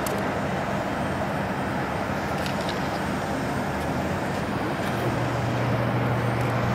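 Embraer 195 airliner's twin GE CF34-10E turbofans running steadily as it flares and touches down. A steady hum in the noise drops to a lower pitch about five seconds in, as the sound gets slightly louder.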